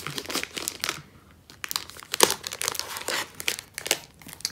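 Clear plastic sleeve crinkling in irregular rustles as the brochure inside it is lifted and handled, with a short lull about a second in.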